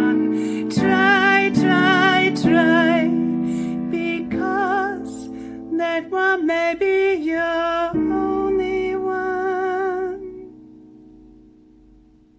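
A woman singing the final line of a slow ballad over acoustic guitar, her notes wavering with vibrato; the voice stops about ten seconds in and the last guitar chord rings out and fades to almost nothing.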